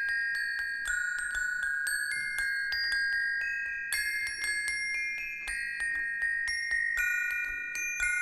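A set of tuned metal bars struck in turn with two small sticks, playing a melody of quick ringing notes, about three or four a second: a church-bell ringer's tune played on a small practice set of bars.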